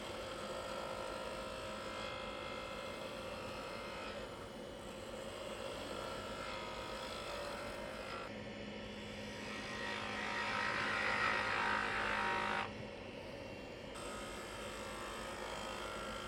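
Wood lathe running with a black walnut blank spinning on a jam chuck. A turning tool cuts the wood and gets louder for about three seconds past the middle, then stops suddenly.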